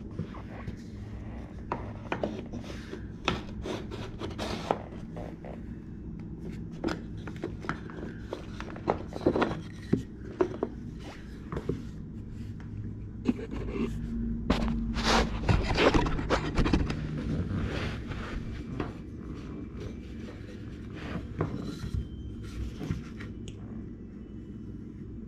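Small piece of wooden baseboard trim being handled and test-fitted at a door frame: irregular wooden scrapes, rubs and light knocks, busiest about halfway through.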